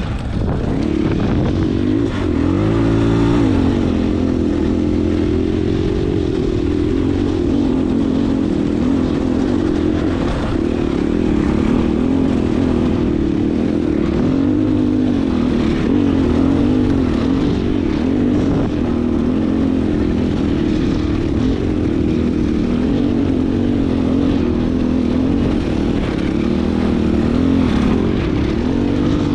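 Husqvarna dirt bike engine running steadily under load, heard from on the bike, its pitch rising and falling continually as the throttle is worked climbing a rocky trail.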